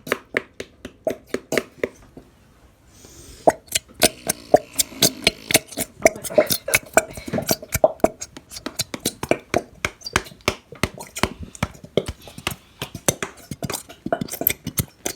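Plastic squeeze bottles of Elmer's glitter glue being squeezed out into bowls, sputtering with quick wet pops and clicks several times a second as glue and air are forced through the nozzles. The popping pauses briefly about two seconds in, then goes on.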